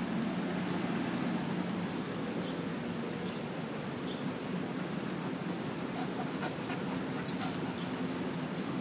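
Dogs playing, giving a few short, faint vocalisations over a steady background hum.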